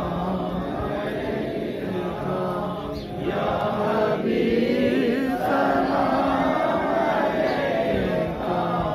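Voices chanting a devotional Urdu naat in long, drawn-out notes that glide slowly from pitch to pitch.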